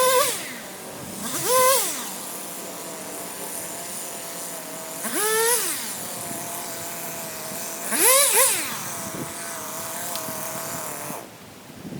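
Chainsaw idling between four short throttle bursts, each revving up and falling back, while felling a large yellow pine; the engine is shut off about eleven seconds in.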